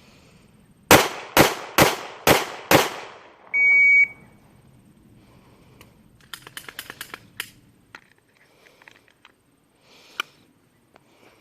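Five pistol shots from a Glock 26 9mm in quick succession, about half a second apart, followed by a short electronic beep. Later there is a fast run of fainter clicks and then a single sharp click.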